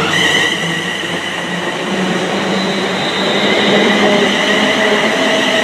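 London Midland Class 350 Desiro electric multiple unit accelerating away, its traction motors whining in several steady tones over the rush of wheels on the rails.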